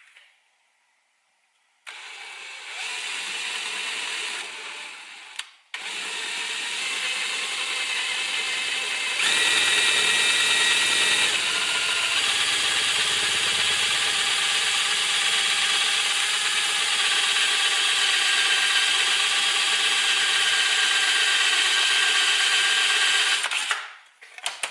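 Electric drill running as it bores a hole through the center of a camera mount. It starts about two seconds in, stops briefly, then starts again and gets louder a few seconds later. It runs steadily until it stops shortly before the end.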